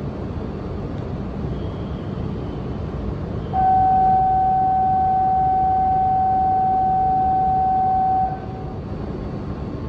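A single loud, steady electronic tone lasting about four and a half seconds, starting about three and a half seconds in, over a steady low hum from the E5 series Shinkansen standing at the platform.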